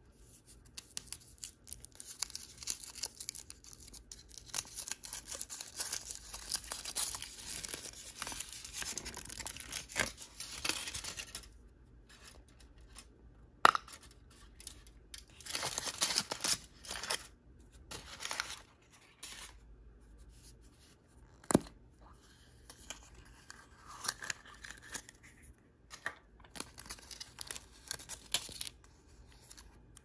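Blind-bag packaging being torn open and handled, crinkling in a long stretch through the first third and then in shorter bursts, with two sharp clicks along the way.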